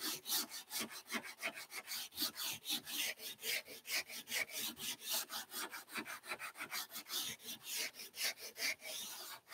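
Sanding block wrapped in abrasive paper rubbed back and forth along the curved edge of a wooden chair part in quick, even strokes, about six a second, smoothing the curve.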